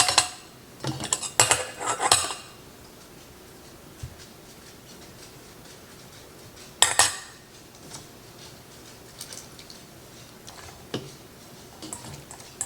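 Metal utensil clinking against glass canning jars and a pot while baked beans are spooned into pint jars: a cluster of clinks in the first two seconds, one sharp clink about seven seconds in, and a few light taps near the end.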